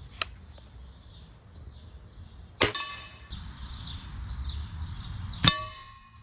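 Two .22 air rifle shots about three seconds apart, each pellet striking a metal pan with a sharp clang that rings on briefly. The pellets break up on the pan and leave only light marks.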